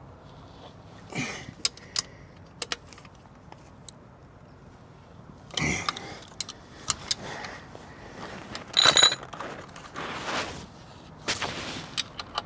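Metal parts and tools clinking, knocking and scraping by hand as a scooter's belt transmission (variator, belt and clutch) is put back together. Scattered single clicks, with a few louder clattering handling noises, the loudest about nine seconds in.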